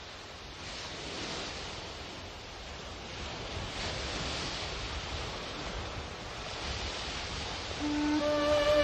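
Ocean waves washing in, a hiss that swells and ebbs about every three seconds and slowly grows louder. Sustained music notes come in near the end.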